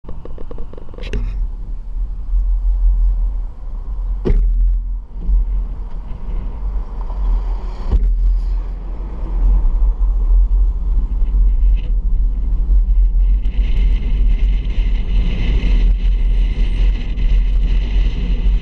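Road noise of a car driving on a highway, heard from inside: a strong steady low rumble with a few sharp knocks, and a hiss that grows louder about two-thirds of the way in.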